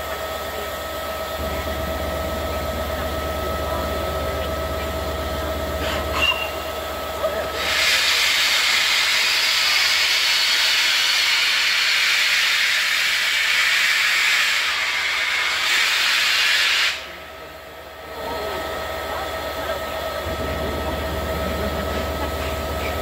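Steam hissing loudly from LNER Peppercorn A1 Pacific 60163 Tornado. It starts about 8 s in over a steady background hum, holds for about nine seconds and cuts off suddenly.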